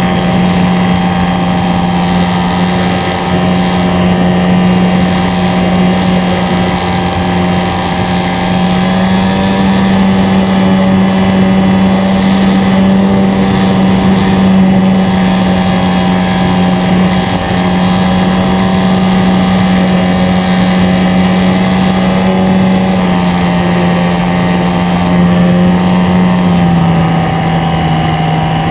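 Small-scale RC Piper Super Cub model airplane's motor and propeller droning steadily in flight, heard up close on the airframe. The pitch rises a little about eight seconds in and drops a little twice near the end.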